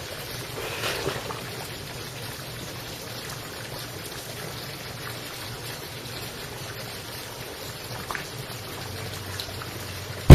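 Steady watery background noise, then near the end one sharp, very loud bang: a Makarov 9x18 pistol fired underwater. This is the shot that blows the pistol's slide off.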